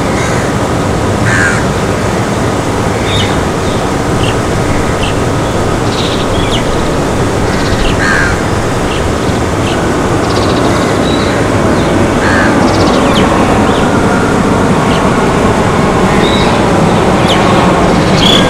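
Jet airliner's engines on final approach with landing gear down, a steady rushing roar that grows louder near the end as the plane comes overhead. Crows caw now and then over it.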